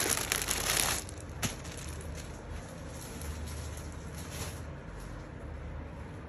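Clear plastic packaging crinkling as a folded suit is pulled out of its bag, stopping abruptly about a second in. A single light tap follows, then only a faint low hum.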